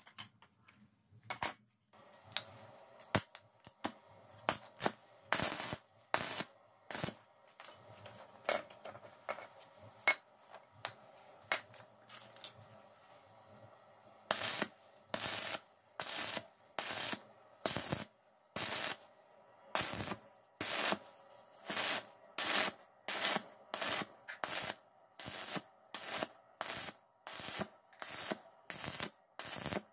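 Hand tool working a steel flat bar: a few scattered metallic taps and strokes, then from about halfway a steady run of short scraping strokes, about three every two seconds.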